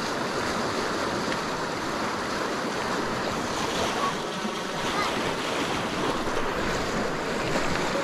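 Fast, silty glacial meltwater river rushing over stones: a steady rush of water.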